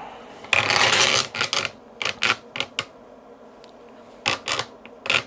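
Hands handling hardware: a loud scraping rustle lasting under a second, then a string of sharp clicks and knocks.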